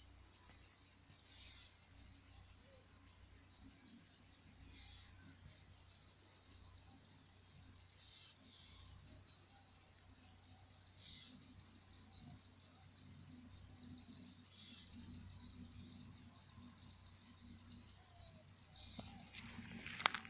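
Insects, likely crickets, droning steadily at a high pitch in a grassy field, with short chirps now and then and a few sharp clicks near the end.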